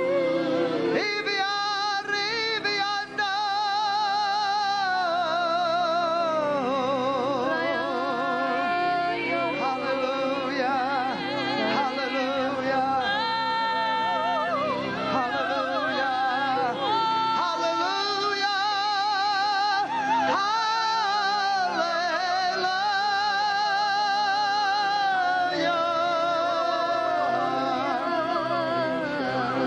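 Singing in tongues: long, gliding held notes with a wide vibrato over steady held chords from an accompanying instrument.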